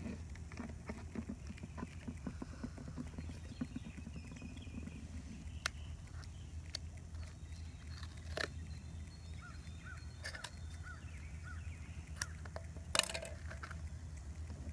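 Duct tape being pulled off its roll and pressed around the rim of a plastic 2-liter soda bottle: scattered light crinkles and taps of handling, with a few sharp snaps of tape, the loudest about thirteen seconds in.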